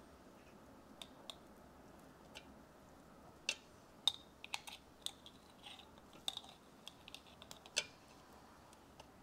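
Small metal spoon clicking and scraping against a glazed ceramic jar while scooping out cooking fat, with irregular light taps and a few sharper knocks, the sharpest about three and a half, four and eight seconds in.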